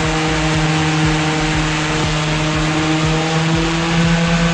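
Hydraulic ground power unit running at 3000 psi and spinning an Airbus A320's ram air turbine during a functional test: a loud, steady machine hum with a constant hiss.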